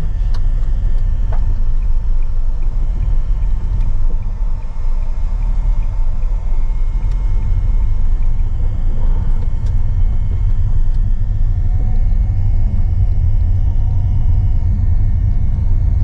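Steady low rumble of a car driving on a gravel road, heard inside the cabin: tyre and road noise with the engine running under it, and a few faint ticks.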